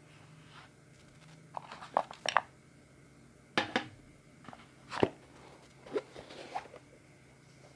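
Unboxing handling sounds: irregular sharp clicks, taps and crinkles of packaging and small fingerboard parts being handled, in bunches about a second apart.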